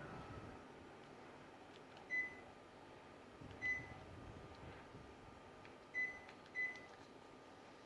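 Panasonic mini split air conditioner's indoor unit giving four short single beeps at one pitch, irregularly spaced, each the unit acknowledging a command from the remote control. A faint steady tone runs underneath.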